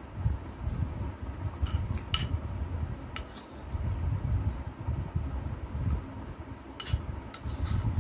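Eating sounds: an uneven low chewing rumble with about six light clinks of dishes, several of them near the end.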